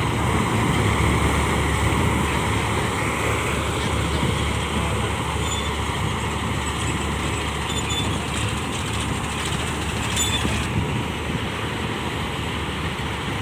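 Kuldeep 932 combine harvester running steadily, its engine and threshing machinery making a continuous loud rumble. A few brief high-pitched squeaks come through between about five and ten seconds in.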